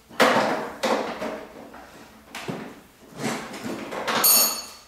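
Metal tools and parts being handled: irregular scraping and clattering, with a ringing metallic clink near the end.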